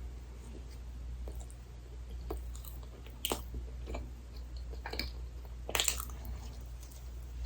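Close-miked chewing of dessert: soft wet chewing with a handful of crisp crunching bites, the loudest about three and six seconds in, over a steady low hum.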